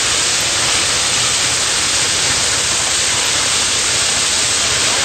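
1904 Metropolitan Extra First Class steam fire engine pumping, giving off a loud, steady hiss with no break or beat.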